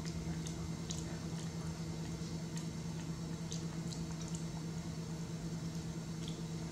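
Baby monkey chewing and lip-smacking on a snack: faint, scattered small wet clicks, over a steady low hum.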